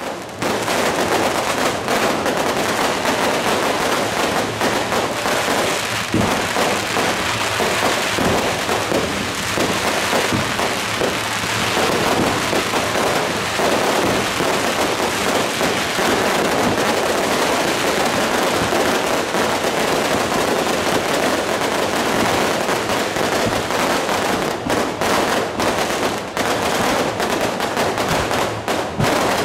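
A long string of firecrackers going off in a dense, continuous crackle of pops, thinning into more separate bangs toward the end.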